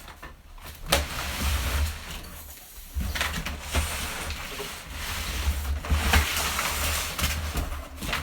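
Cardboard shipping box being opened and handled: scraping, rustling and tearing, with several sharp knocks and thuds.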